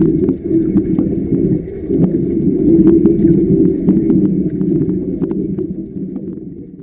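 Underwater welding heard through the water: a muffled, dense rumble with many sharp crackling clicks, fading out near the end.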